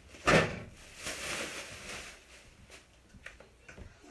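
Groceries being handled and put away in a kitchen: one sharp knock about a third of a second in, then about a second of softer handling noise and a few light clicks.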